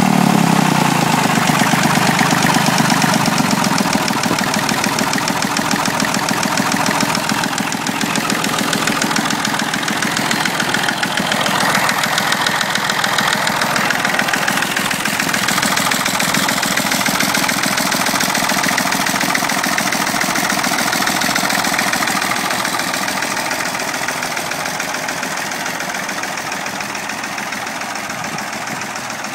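Massey Ferguson 35 Industrial tractor engine running steadily at idle, turning over again after being seized from standing. It grows gradually fainter through the second half.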